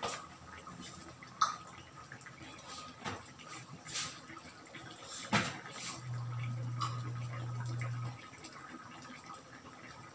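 Drinking water from a glass: faint liquid sounds and a few sharp clicks of the glass, with a low steady hum for about two seconds past the middle.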